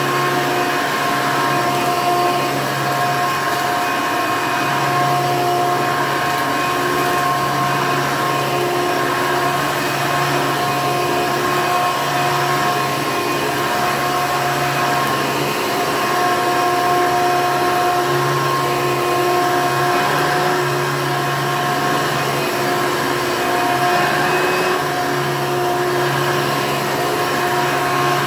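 1994 Hoover Elite U4717-930 upright vacuum cleaner running steadily: a constant motor whine over the rush of air.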